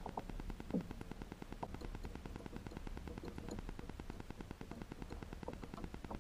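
Rapid, even crackling buzz of electronic interference over a low hum, caused by a wireless unit left switched on near the camera.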